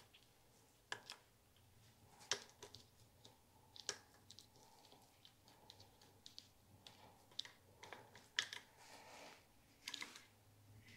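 Faint, irregular clicks and light knocks from a rod working inside a suspension fork leg as greased elastomer bumpers are pushed into place.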